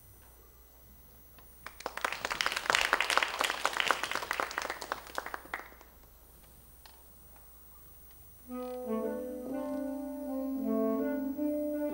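Audience applause for about four seconds, then after a short pause two saxophones begin a slow duet. They play long held notes in two-part harmony, starting about eight and a half seconds in.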